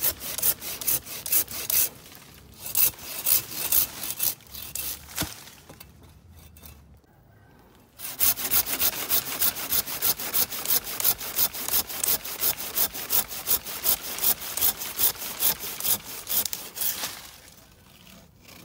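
Hand saw cutting through wood in fast, even strokes, about four a second. The sawing stops for a few seconds near the middle and again near the end.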